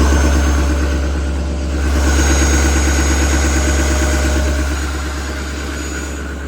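Chevrolet 3500HD's 6.6-litre Duramax V8 turbodiesel running at high idle just after a cold start, the automatic fast idle that warms the engine. Steady diesel idle with even pulses and a faint high whine, swelling slightly about two seconds in.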